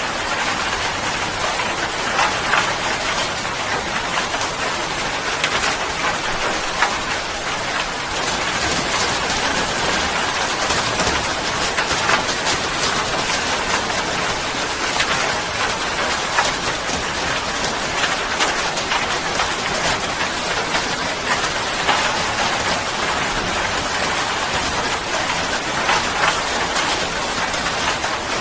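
Steady heavy rain falling, an even hiss dotted with the sharp taps of individual drops hitting a surface.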